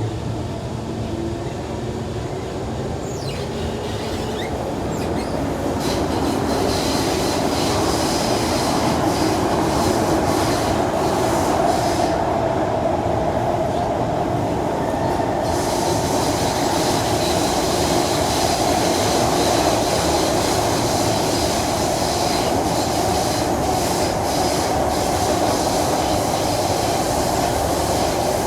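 Kawasaki C151 metro train running through a tunnel, heard from inside the car: steady wheel and track noise with some wheel squeal. A rising whine comes about three seconds in, and the running noise grows louder as the train gathers speed, then holds steady.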